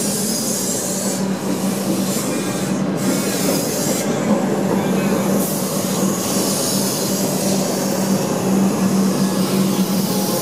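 Melbourne Metro electric suburban train running past along the platform: a steady rolling rumble of wheels on the rails with a constant low hum.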